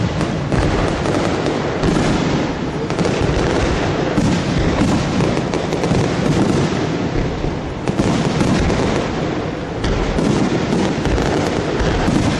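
Fireworks going off in a dense, continuous barrage, many bangs and crackles overlapping with no pause between them.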